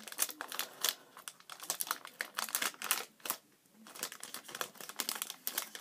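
Crinkling and quick, irregular clicking as a small fragrance sample's packaging is picked at and opened by hand, with a brief pause a little past the middle.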